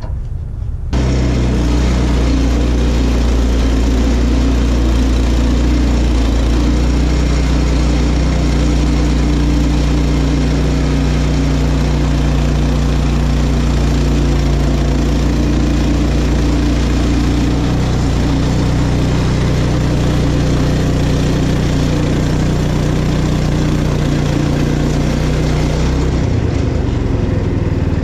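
Portable bandsaw mill's gas engine coming up to speed about a second in, then running steadily under load as the band blade cuts lengthwise through a small cherry log.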